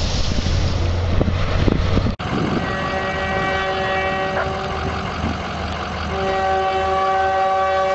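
A train ploughing through deep snow: a rush of blasted snow over a low engine rumble. It cuts off suddenly about two seconds in. Then a train's multi-note air horn sounds in long held blasts, and a louder blast starts about six seconds in and runs on.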